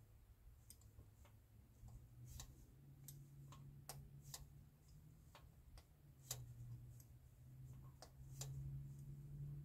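Faint, irregular metallic clicks of a hand wrench working the mounting bolts of a Cummins Big Cam diesel's fuel pump, turned in short swings of about an eighth of a turn. A low steady hum runs underneath.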